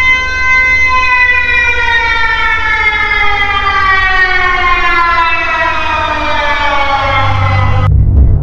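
A siren: one steady tone that holds for about a second, then slowly slides down in pitch like a siren winding down, and cuts off abruptly near the end. A low rumble runs underneath and grows louder just before the cut-off.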